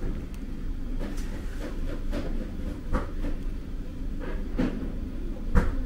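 Dishes and tableware knocking and clinking a few times over a steady low hum, with the loudest knock near the end.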